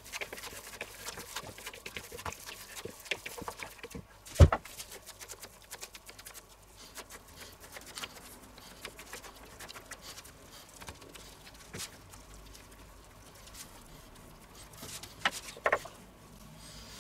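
Gloved hands kneading and patting minced meat, a soft wet squishing and slapping. A single sharp knock comes about four seconds in, and a few clicks come near the end.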